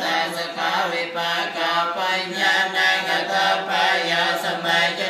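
Group of Khmer Buddhist monks chanting together in unison over a steady, low reciting tone, with the syllables coming in an even rhythm.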